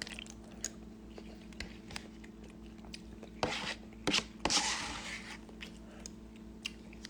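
A person eating ramen close to the microphone: chewing with scattered small mouth clicks, and two short hissy slurps about three and a half and four and a half seconds in.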